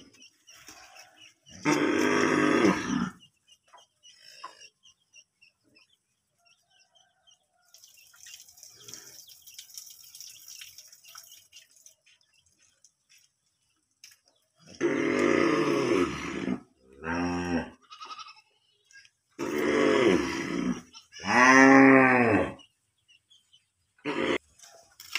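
Cow mooing: one loud moo about 2 s in, then after a long pause a run of four moos close together, the last one rising and then falling in pitch.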